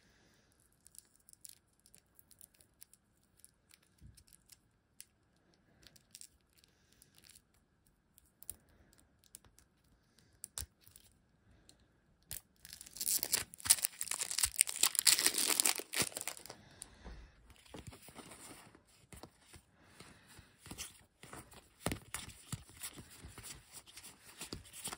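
Plastic wrapping being torn off a deck of board-game cards: a loud burst of tearing and crinkling about halfway through, lasting some four seconds, with light rustles and clicks of the cards being handled before and after.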